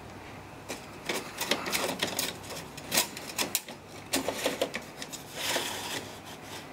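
Plastic clicks and knocks as the blue holder of a Konica Minolta copier's TN301K toner bottle is swung open and the bottle is worked loose, then a scraping slide a little over five seconds in as the bottle is drawn out of its holder.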